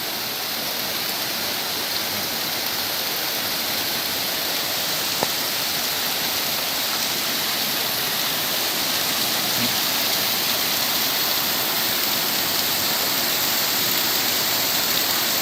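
Spring water flowing out of the mountain and rushing over rocks: a steady rush of water that grows slightly louder toward the end.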